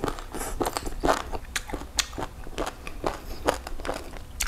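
A person chewing a mouthful of green mango salad with salted cà xỉu (lingula), a quick, irregular run of small crunches and clicks.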